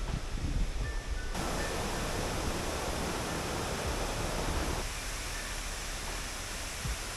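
Waterfall rushing: a steady wash of falling water. The sound turns brighter and fuller about a second and a half in and eases back a little after about five seconds.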